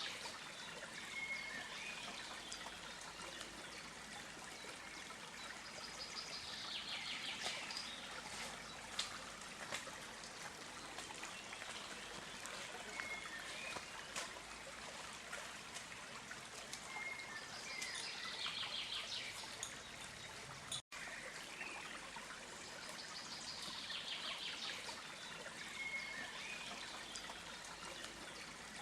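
A small stream trickling steadily, with a bird calling every several seconds in short rapid trills and brief whistles. The sound cuts out for a split second about two-thirds of the way through.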